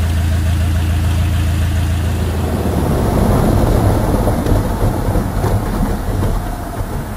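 Single piston engine of a small propeller airplane running at low power while taxiing, heard from inside the cabin as a steady drone. The engine note changes about a third of the way in and grows a little quieter near the end.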